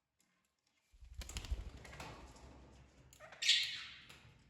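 Parrot flapping its wings: a rustling whoosh starting about a second in, with a louder, sharper burst of flapping near the end.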